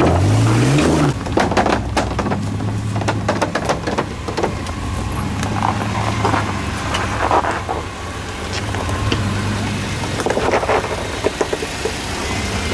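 Jeep engine revving up in the first second, then running steadily under load as it crawls up a rock obstacle. Scattered clicks and knocks come from the tyres on rock.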